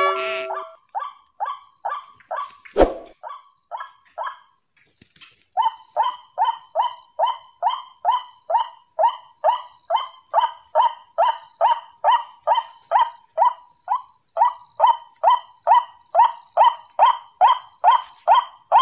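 White-breasted waterhen calls played over a small horn loudspeaker as a lure: a short call falling in pitch, repeated about twice a second. It breaks off briefly around the fifth second, then runs on steady and louder. A single sharp knock comes near the three-second mark, with a thin steady high tone behind.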